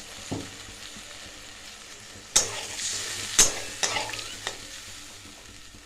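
Fried curry masala sizzling in a pan while it is stirred, with several sharp clinks and scrapes of the spatula against the pan, the loudest about two and a half and three and a half seconds in.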